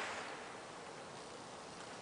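Fading echo of a firecracker blast under a tin can, dying away within the first half second, then faint steady outdoor background noise.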